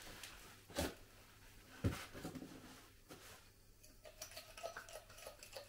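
Faint metallic clicks as steel valve-lifter (tappet) cups for a Volvo D67C diesel engine are handled and set in place: two sharper clicks about a second apart, then a run of quick light ticks near the end.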